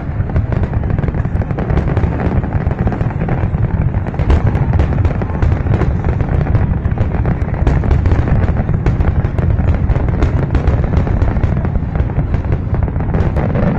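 Fireworks display: a dense, continuous barrage of bangs and crackles over a heavy low rumble.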